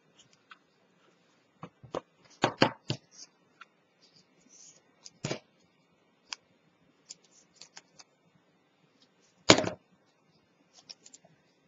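Cardboard pieces and paper strips being handled and set down on a cutting mat: scattered light taps, rustles and clicks. There is a cluster of louder knocks about two and a half seconds in, and a single sharper knock about nine and a half seconds in.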